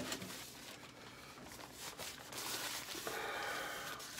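Paper napkin rustling as it is pressed and wiped over the nose and mouth, with breathing through it, louder over the last second or so.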